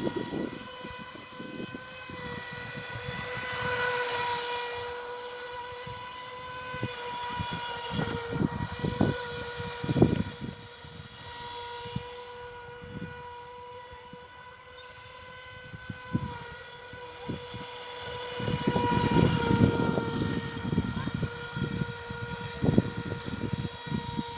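Black Marlin RC boat's electric motor running on a 3S LiPo, a steady high-pitched whine that swells and drops slightly in pitch twice as the boat passes close, about four seconds in and again near the end. Irregular low thumps and rumble sit underneath.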